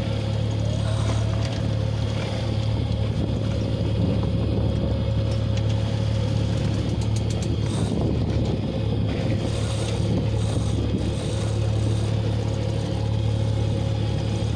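Sailing yacht's engine running steadily under way: a constant low hum with a fainter steady tone above it, mixed with wind and water noise.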